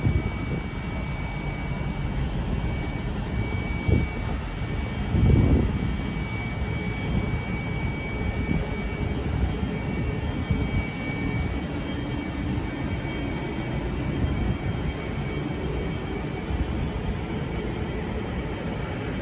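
Passenger train of double-deck and single-deck coaches rolling past the platform at low speed, with a steady rumble of wheels on rail and a thin steady whine over it for the first two thirds. Two dull thumps come about four and five and a half seconds in.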